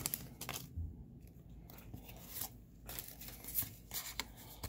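Foil booster-pack wrapper crinkling as it comes open, then trading cards slid out and handled: short, scattered rustles and clicks, loudest at the start.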